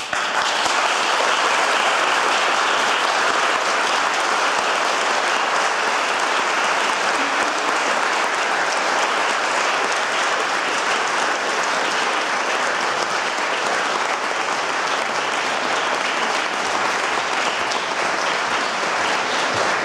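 Audience applauding steadily, the clapping starting abruptly as the song ends.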